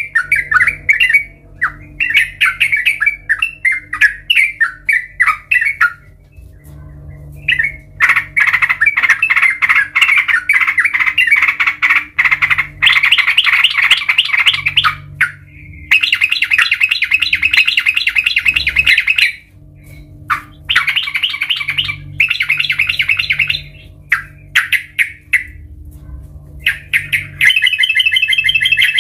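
Yellow-vented bulbul calling loudly: bursts of quick chattering notes and several longer runs of rapid repeated notes, broken by short pauses.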